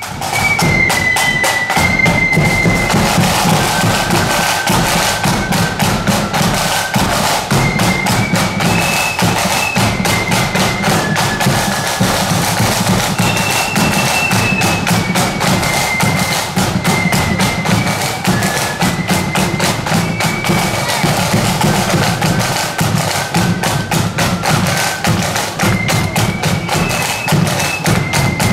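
Marching band playing a tune on the march: a single high melody line stepping from note to note over a steady beat of drums.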